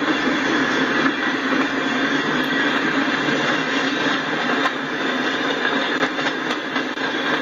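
Freight train tank cars rolling past: a steady noise of steel wheels running on the rails, with a few faint ticks.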